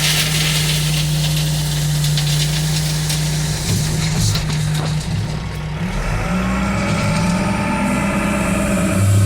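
Heavy diesel engine running, with a hiss at the very start. The steady engine note breaks up about four seconds in and rises in pitch about six seconds in as it is worked harder.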